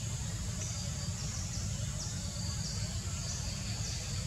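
Forest ambience: a steady high-pitched insect hum with short high chirps repeating irregularly about every half second, over a steady low rumble.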